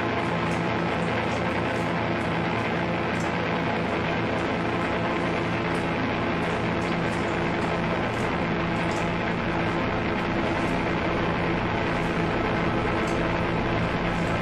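Dense, steady droning doom-metal music, a continuous wall of sustained low tones and noise with faint high ticks scattered through it.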